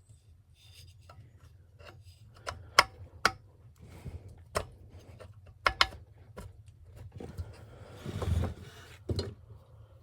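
Sharp metal clicks and knocks from tools worked against a small mower engine's piston and block, with a longer scraping rub about eight seconds in. The piston is jammed in the bore by rust and crud on the cylinder lip.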